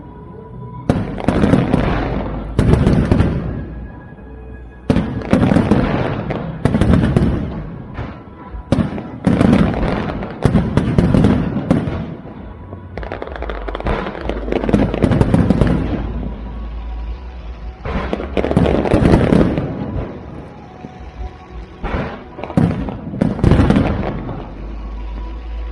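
Fireworks display: aerial shells bursting one after another, a boom every second or two with crackling tails, with music playing underneath.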